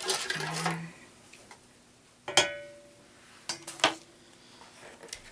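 Spoon stirring syrup in an enamel pot, scraping briefly at the start. About two seconds in comes a single sharp, ringing clink of the spoon on the pot, then two lighter knocks a second later as the spoon is put down.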